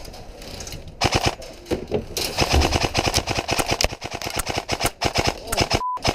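Airsoft rifles firing in rapid full-auto bursts, a fast stream of sharp cracks that starts about a second in and keeps going almost to the end. Near the end a short steady bleep tone cuts in.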